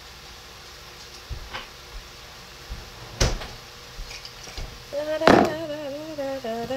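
Kitchen cabinets being opened and shut: a few sharp knocks, the loudest about five seconds in. A wavering, voice-like sound starts just before that last knock.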